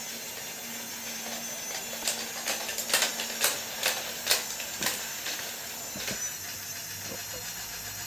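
Disney monorail playset train running along its track under remote control: a steady motor whir with a string of irregular sharp clicks between about two and five seconds in.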